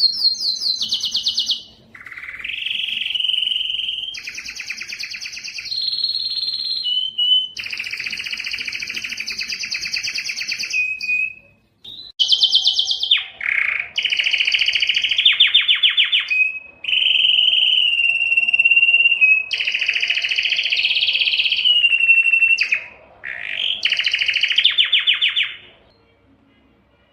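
A male Spanish timbrado canary singing: phrases of very fast, rattling rolls alternate with steady whistled notes and short gliding notes. The song breaks off briefly twice and stops about a second before the end.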